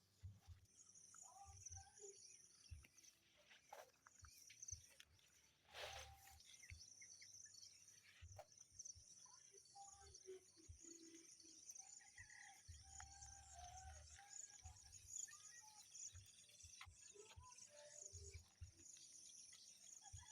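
Near silence: faint rural ambience of a steady high insect trill, with scattered soft bird chirps and brief low bumps.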